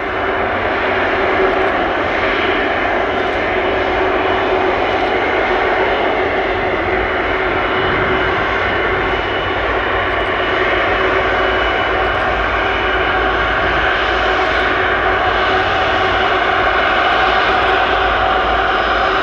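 Airbus Beluga XL's twin Rolls-Royce Trent 700 turbofans running at taxi power as the aircraft taxis: a steady jet rumble with a steady whine over it.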